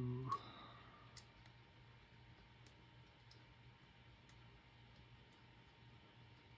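Near silence over a low steady hum, with a few faint, scattered clicks of small parts handled between the fingers. A short voiced hum and a sharper click come right at the start.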